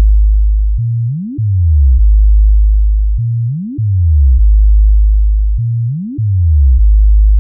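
Synthesized low-frequency bass test tone for a speaker sound check. A very loud, deep, steady bass note is broken about every two and a half seconds by a quick upward pitch sweep that then steps back down to the low note.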